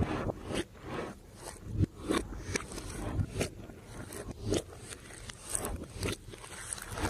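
Glossy slime being worked by hand: uneven sticky crackling and short popping clicks, about one or two a second, as it is pressed and stretched.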